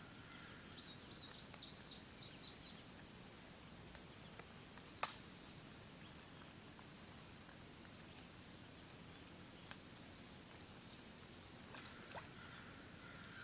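Insects droning steadily at one high pitch, with a few quick high chirps in the first few seconds and a single sharp click about five seconds in.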